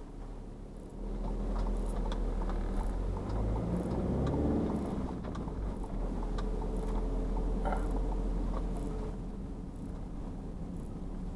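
Motorhome engine and road noise heard inside the cab, getting louder about a second in as the vehicle accelerates. The engine note rises in pitch around the middle, then runs steady.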